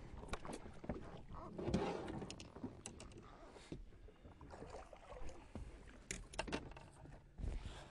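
Water splashing and scattered knocks and clatters against the boat's side as a hooked striped bass is grabbed by hand and hauled aboard, with a burst of splashing about two seconds in.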